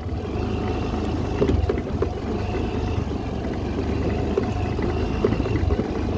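Suzuki Avenis 125 scooter's single-cylinder engine running steadily at low speed over a rough dirt track, with short knocks and rattles from the bumps.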